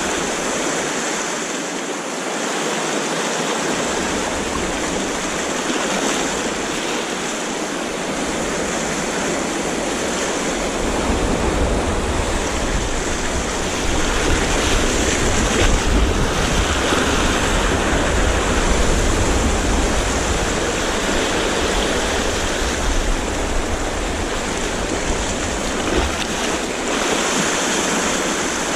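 Sea waves washing against the shore in a steady rush, with a low wind rumble on the microphone joining in from about ten seconds in.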